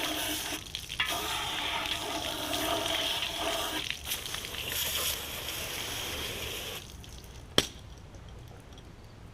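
Soapy water sloshing and splashing as the cylinder bores of a cast-iron Ford FE V8 engine block are washed by hand with a sponge. It breaks off briefly twice, then dies away, and a single sharp knock follows.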